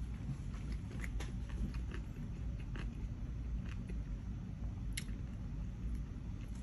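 A person chewing a mouthful of food with the mouth closed: scattered soft mouth clicks and smacks over a steady low background hum.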